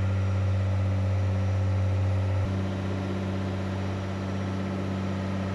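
Boat's engine running with a steady low drone, its level dropping slightly and its tone shifting about two and a half seconds in.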